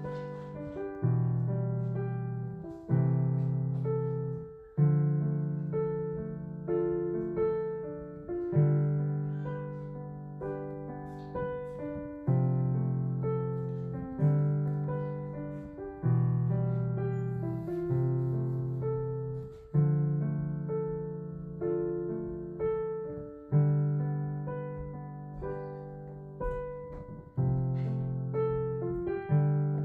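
Background piano music: a calm piece of repeated chords, with a new bass note struck about every two seconds under a melody.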